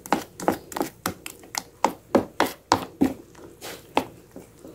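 Thick cassava cake batter being stirred by hand in a blender jar: a quick run of wet taps and knocks, about three or four strokes a second.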